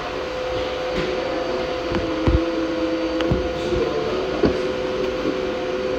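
Exercise bike being pedalled: a steady mechanical whir with two held tones, and a few low knocks scattered through it.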